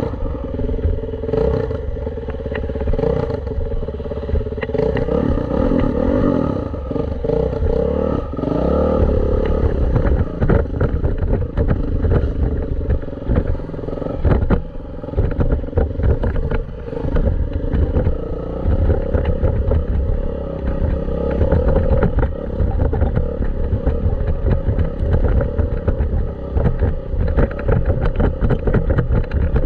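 Dirt bike engine running under changing throttle while riding a track, with frequent clatter and knocks throughout.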